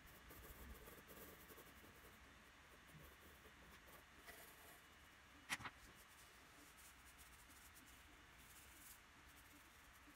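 Faint pencil strokes scratching and rubbing on drawing paper, with a sharp double click about halfway through.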